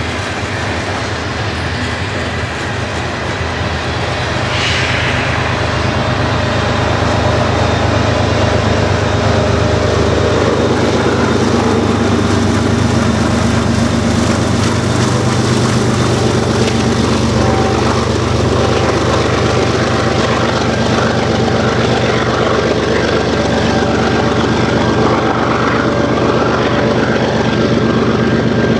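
Rear-end distributed-power locomotive of a grain train, a CN GE ES44AC diesel, working under power as it passes: a loud, steady engine drone that grows louder about five seconds in, over the rumble of hopper cars on the rails.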